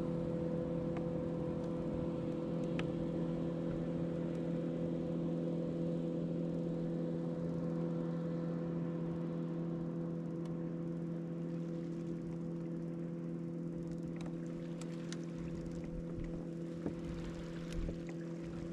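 Electric bow-mounted trolling motor on a bass boat humming steadily, with a few faint clicks and knocks near the end.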